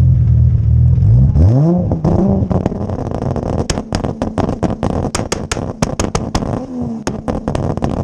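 Single-turbo Toyota Supra 2JZ-GTE engine running loud at a steady engine speed, then revving up sharply and lifting off. This is followed by a run of irregular, sharp pops and crackles from the exhaust.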